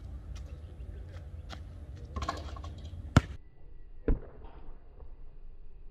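Basketball bouncing on a hard court: a few light knocks, then a loud sharp hit about three seconds in and a heavier thump about a second later.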